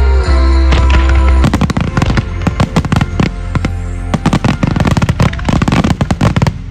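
Music with a heavy bass plays, and about a second and a half in a rapid barrage of fireworks begins: many sharp bursts and crackles in quick succession over the music.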